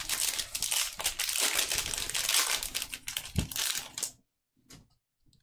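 Foil Magic: The Gathering booster pack wrapper crinkling as it is torn open and the cards are drawn out. The crinkling stops about four seconds in, leaving only a few faint clicks.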